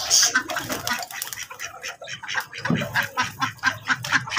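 Domestic chickens clucking with ducks quacking among them, a quick run of short calls that gets busier in the second half.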